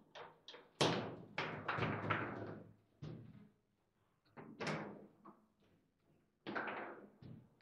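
Table football (foosball) table in play: sharp, irregular knocks and thuds as the ball is struck by the figures and the rods clack in the table. The loudest knock is about a second in, and further clusters come midway and near the end.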